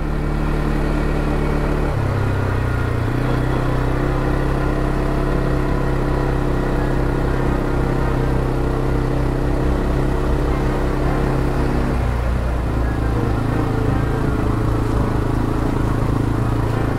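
CFMoto CForce ATV's single-cylinder engine running steadily. Its note drops about two seconds in and changes again about twelve seconds in.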